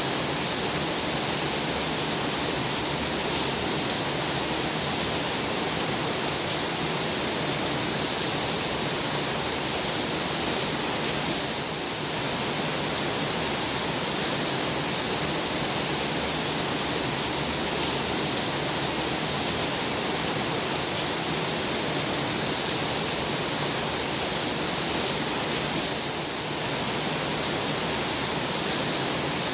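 Heavy rain falling steadily, a dense, even hiss that dips slightly twice for a moment.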